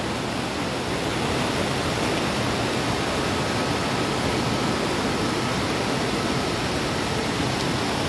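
River rapids and a waterfall rushing steadily over rocks, an even, unbroken sound of running water.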